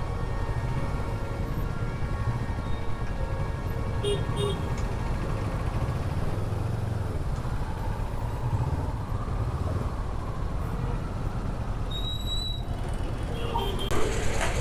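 Honda NX500 motorcycle riding in traffic: a steady low rumble of engine and wind. Short beeps from surrounding traffic come about four seconds in, and a brief high whistle comes near twelve seconds.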